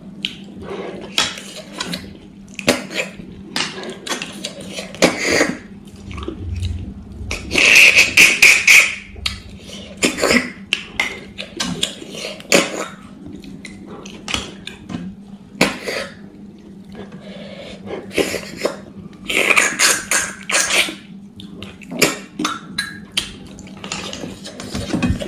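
Close-up eating sounds of snails in curry with rice, eaten by hand: a string of short wet mouth noises and chewing, with two longer, louder sucking slurps about 8 and 20 seconds in as the snail meat is sucked from the shells, and light clinks on a steel plate.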